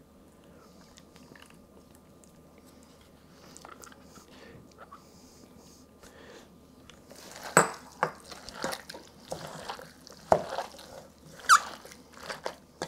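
Gloved hands squeezing and mixing a wet marinade of sliced meat, onion and herbs coated in pomegranate molasses in a stainless steel bowl. Irregular wet squelches start about halfway through.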